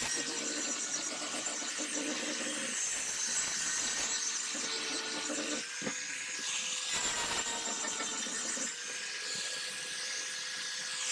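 High-speed electric power tool running steadily against metal, a slightly wavering whine over a hiss: abrasive rust removal on the steel cleaver.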